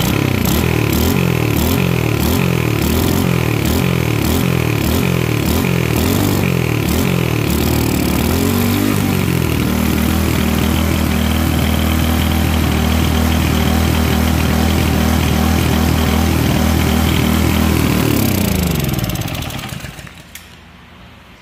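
Earthquake Viper 99cc tiller's single-cylinder Honda-clone engine running just after a pull start, surging up and down in speed about once a second for the first eight seconds, which the mechanic puts down to the freshly cleaned carburetor not yet being full. It then settles into a steady run, and near the end it is shut off and winds down to a stop.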